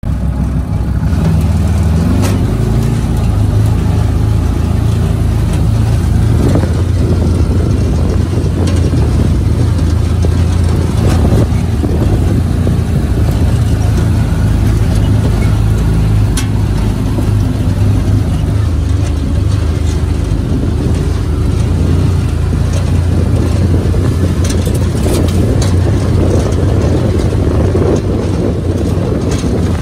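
Off-road vehicle's engine running with a steady low drone as it drives a rough, rocky dirt trail, with scattered rattles and knocks from the chassis and cage, more frequent near the end.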